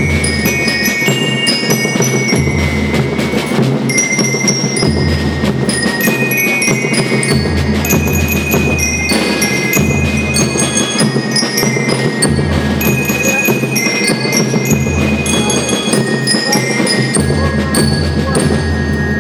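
A children's school rhythm band playing: a melody of high ringing notes on marching bell lyres over steady snare drumming and a regularly pulsing bass drum.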